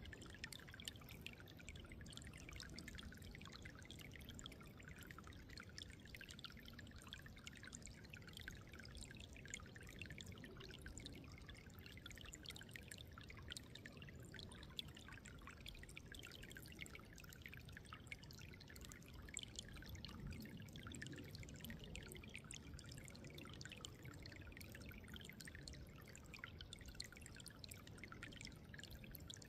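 Running water trickling and splashing steadily, faint, with a low rumble underneath that swells a little about twenty seconds in.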